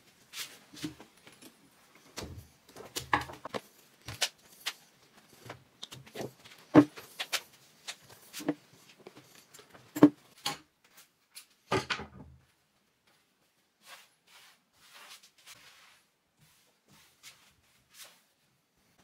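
Irregular sharp metallic clicks and knocks of hand tools working on an upholstered chair seat, loudest about 7 and 10 seconds in. After about 12 seconds only faint scattered taps and rustles remain.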